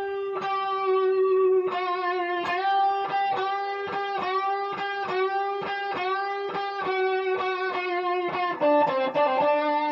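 Electric guitar playing a blues release-bend lick in D: a bent note picked again and again, about three times a second, each attack sliding up into pitch with a slight vibrato. About eight and a half seconds in, the line drops to lower notes.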